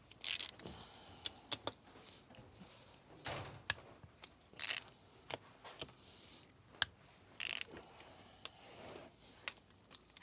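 Hand tools and small metal parts clinking, with scattered sharp clicks and a few short scrapes, as the nuts come off the camshaft bearing caps of a VW Golf 16v cylinder head.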